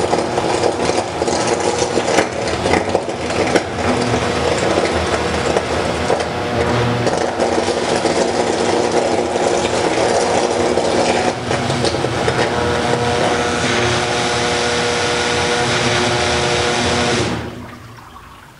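Portable DC metal disintegrator arc-eroding the cap of an aluminum rivet, its servo-fed electrode burning steadily: a loud, even buzzing hiss with a hum. It cuts off suddenly near the end as the burn through the cap is stopped.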